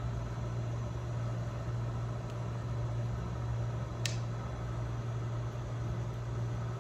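Steady low mechanical hum, with one sharp click about four seconds in.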